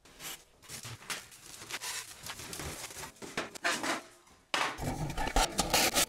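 Light clinks, taps and rattles of sheet metal and tools being handled while a flue shroud is fitted. About four and a half seconds in the sound changes to a busier clatter over a faint steady hum.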